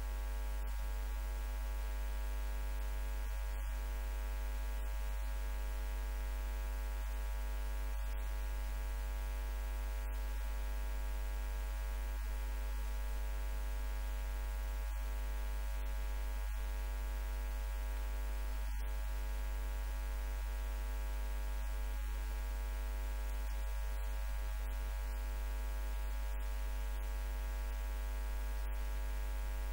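Steady electrical mains hum, pitched at about 50 Hz with a dense stack of evenly spaced overtones. No voices are heard over it.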